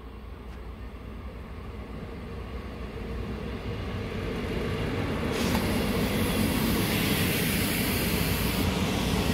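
ČD Class 814 Regionova diesel multiple unit approaching and running past close by. Its engine rumble and wheel-on-rail noise grow steadily louder, and a rushing hiss joins in about five seconds in as it draws alongside.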